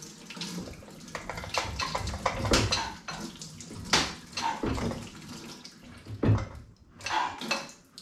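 Hand tools and metal fittings clinking and knocking in an irregular series as braided oil lines are worked loose from a Chevy V6 race engine.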